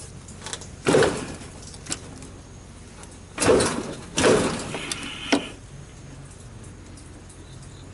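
Large adjustable wrench clanking and grating against a brass valve clamped in a pipe vise, in short loud bursts: once about a second in, then three close together between three and a half and five and a half seconds. The wrench is straining at a seized valve-to-pipe threaded joint that will not budge.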